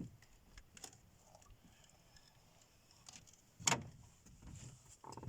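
Scattered clicks and knocks of fishing gear being handled in a boat, the loudest a sharp knock with a dull thud about three and a half seconds in.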